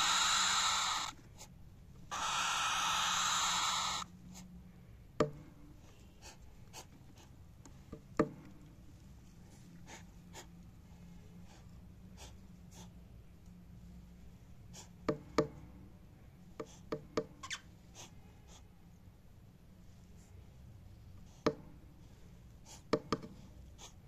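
Cockatiels in a nest box giving two long, breathy defensive hisses in the first four seconds. Scattered light clicks and taps follow.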